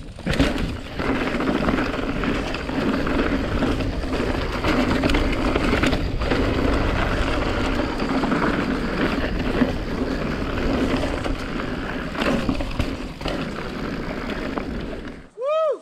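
Mountain bike rolling fast down a dirt fire road: tyre noise on loose dirt and wind buffeting the camera's microphone, with occasional sharp knocks from bumps. Near the end the noise cuts off suddenly and a brief tone that swoops up then down in pitch follows.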